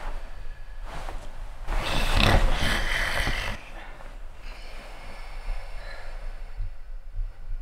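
A man snoring, with one long, loud snore starting about two seconds in and lasting nearly two seconds, and quieter breathing on either side of it.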